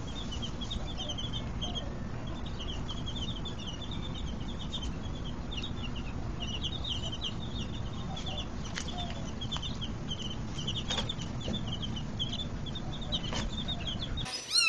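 A brood of baby birds peeping continuously: many short, high peeps in quick succession over a steady low rumble, cutting off abruptly near the end.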